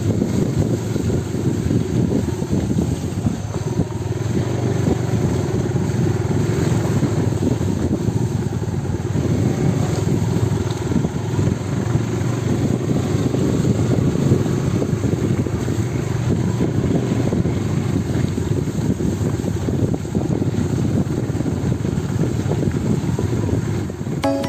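Steady engine drone and rushing road noise of a motor vehicle under way.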